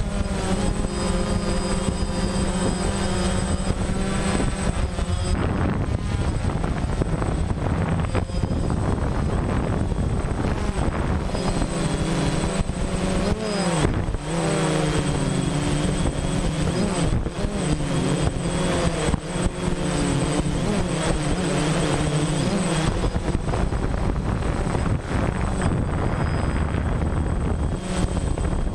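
DJI Phantom quadcopter's motors and propellers whirring in flight, heard close up from the camera it carries, over a steady rushing noise. The motor pitch wavers and glides as the drone manoeuvres, most of all around the middle.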